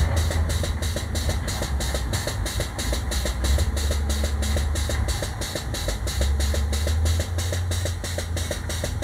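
Air-powered grease pump pumping in a fast, even rhythm of about four to five strokes a second as grease is forced into a truck's leaf-spring pin, over a steady low engine hum.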